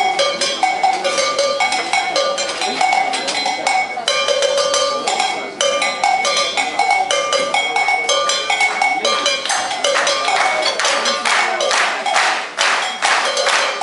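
Live percussion ensemble playing a fast rhythm on two-pitched cowbells with sticks and drums. Heavier drum hits join from about ten seconds in.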